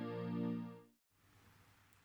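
Polyphonic ringtone of a Sharp GX25 Ferrari Edition mobile phone: a pitched, chord-like electronic tone fading out and stopping just under a second in.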